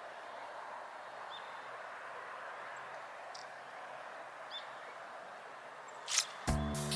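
Steady outdoor ambience, a soft even hiss, with a few faint short bird chirps. Near the end a brief burst of noise, and then background music starts.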